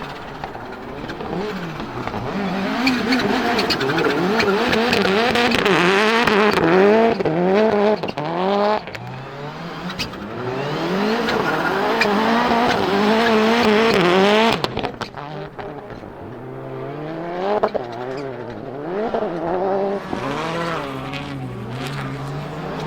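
Turbocharged 2.0-litre four-cylinder Lancia Delta Integrale engine in a rally Fiat Grande Punto, revving hard with its pitch swinging up and down every half second or so. It lifts off suddenly about two-thirds of the way through, with a few sharp cracks, then runs on at lower, steadier revs.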